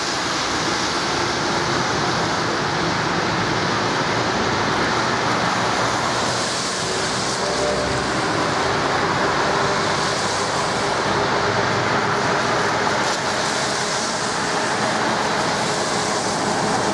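Steady road-traffic noise on a wet street: tyres hissing on wet asphalt as cars pass. From about halfway, faint steady tones join in as an old four-wheel tram rolls closer along the track.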